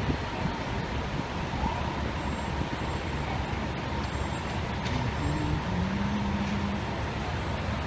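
Steady city street traffic with the diesel engines of parked fire trucks idling. A faint steady whine runs above the rumble, and an engine note rises briefly about five to seven seconds in.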